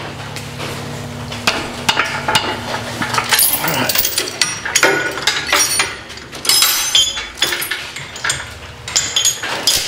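Steel chain and hooks clinking and clanking against metal as they are handled, a quick run of sharp metallic knocks with a ringing tail. A steady low hum sits under the first three seconds or so.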